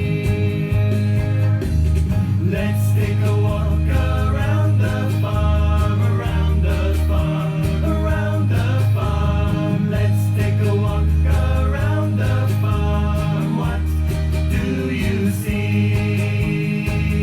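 Children's song playing, with acoustic guitar, a steady bass beat and singing.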